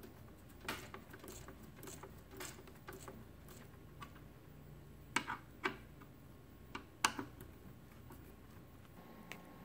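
Faint clicking and ticking of a screwdriver turning the mounting screws on a Corsair H100i v2 liquid cooler's pump block, with a few sharper clicks about five and seven seconds in.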